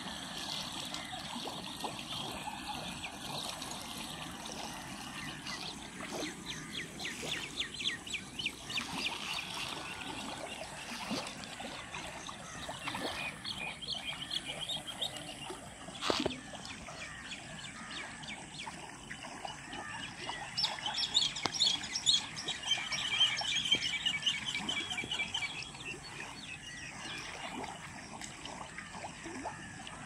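Birds chirping and calling over the steady rush and trickle of water flowing along a concrete-lined irrigation canal. The birdsong is busiest and loudest about two-thirds of the way through, and a single sharp click comes about halfway.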